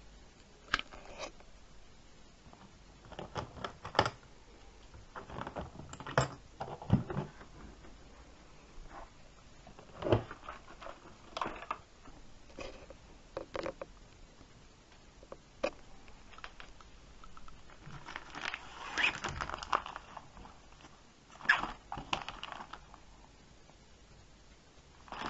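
A sewing-machine carrying case being unlatched and opened: scattered sharp clicks and knocks from the metal latches and the case. A stretch of rustling comes about two-thirds of the way through.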